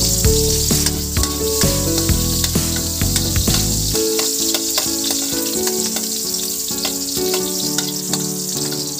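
Chopped garlic sizzling in hot oil in a metal pan, stirred with a metal ladle, with many small crackles and clicks. Background music plays underneath, its bass dropping out about four seconds in.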